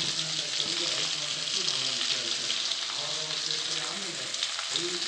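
Chopped vegetables for sambar sizzling steadily in hot oil in a kadai, with chili powder and sambar powder just added on top.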